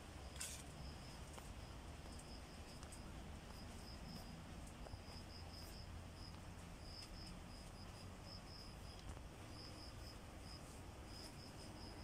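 Faint, high-pitched insect chirping in short pulses that repeat in little runs throughout, over a low rumble, with one sharp click about half a second in.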